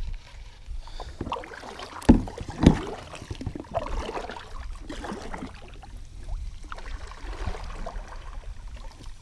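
Kayak paddle strokes: the double-bladed paddle dipping and pulling through the water with splashes and drips, and two louder knocks a little after two seconds in.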